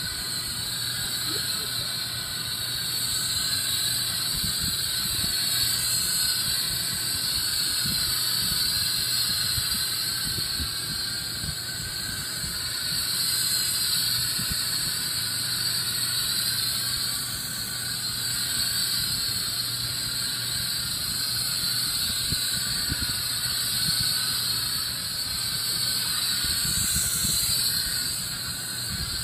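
Steady hiss of gas rushing through a filler line into an upper-air weather balloon as it is inflated.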